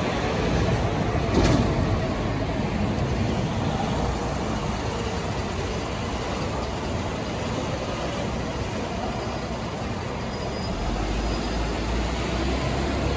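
A diesel city bus driving close past and pulling away, loudest about a second and a half in, then fading to a steadier engine and tyre noise as it moves off. A deeper rumble comes in near the end.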